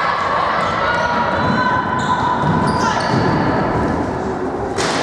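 Basketball game sounds: a ball bouncing on the court amid players' voices, with a short sharp noise just before the end.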